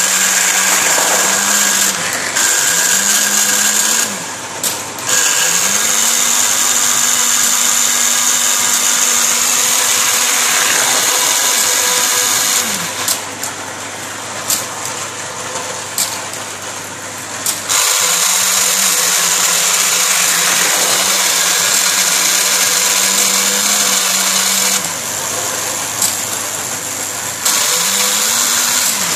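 Lionel toy magnetic crane's electric motor and gear train running with a high whir as the crane swings and works its electromagnet. The motor stops and restarts several times, its hum rising as it spins up and falling as it winds down, with a few sharp clicks during the pauses.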